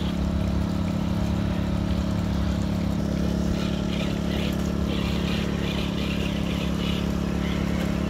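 Portable petrol generator running with a steady engine hum. From about three and a half to seven seconds in come bursts of hiss as a remote-control crawler truck drives through the shallow pond water.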